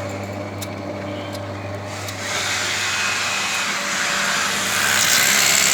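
Electric motor running with a steady low hum, joined about two seconds in by a rushing whirr that grows louder.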